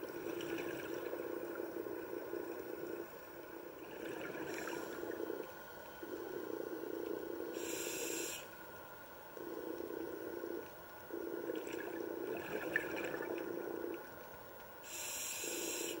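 Scuba diver breathing through a regulator underwater: cycles of breath that come and go every few seconds, with short sharp hisses around the middle and near the end, and exhaled bubbles.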